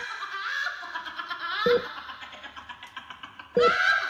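Dance music track playing, with a deep hit about every two seconds under high voice-like sounds that bend in pitch.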